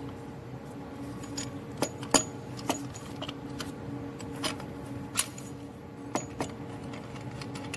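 Several sharp metallic clicks and taps at irregular intervals, made as the steel pieces of an injector puller tool are handled and turned by hand. A steady low hum runs behind them.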